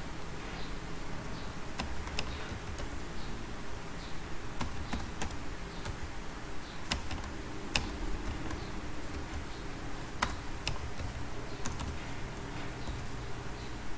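Computer keyboard keys being pressed as numbers are typed, sharp irregular clicks one or two at a time, over a steady low background hum.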